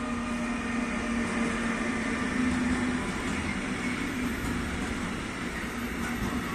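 Freight train of tank wagons rolling past behind an ÖBB Taurus electric locomotive: steady wheel-on-rail noise with a low hum, the hum strongest in the first few seconds.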